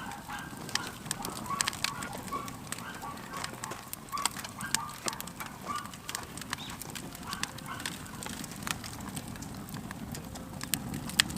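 Wood campfire crackling: frequent sharp, irregular pops and snaps over a low steady rumble.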